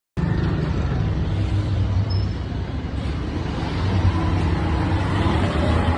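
Restored Honda CB100 motorcycle's single-cylinder engine idling steadily, starting abruptly just after the cut.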